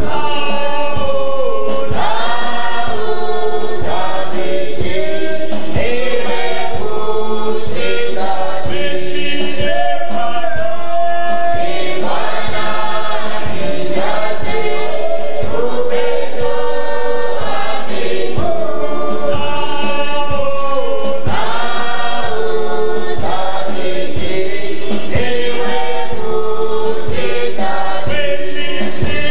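Group of voices singing a gospel worship song, a chorus of sustained sung lines over a steady drum beat of about two strokes a second.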